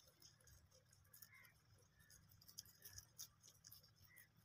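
Faint, irregular soft clicking and crunching of a group of young rabbits nibbling chopped fresh grass.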